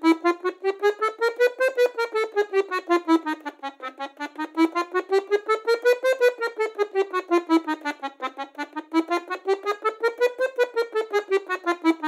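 Bayan (Russian button accordion), right hand playing a chromatic scale in short separate notes, climbing and falling by semitones through about an octave three times over.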